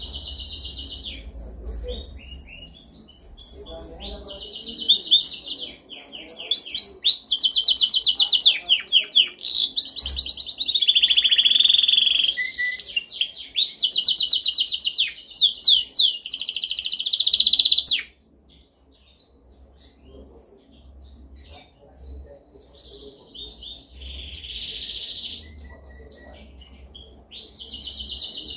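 Domestic canary singing in fast trilled rolls, phrase after phrase of rapidly repeated notes. About 18 seconds in the loud song cuts off abruptly, and softer, more scattered phrases follow.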